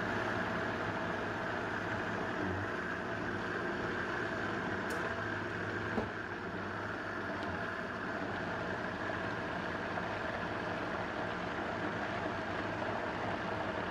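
Countertop blender running steadily on high, its motor and blades pureeing shredded zucchini, Greek yogurt and honey into a smooth batter. There is one brief click about six seconds in.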